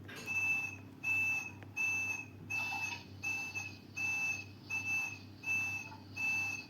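Repeated electronic beeping: one high, steady-pitched tone sounding about nine times at an even pace of roughly one and a half beeps a second, over a low hum.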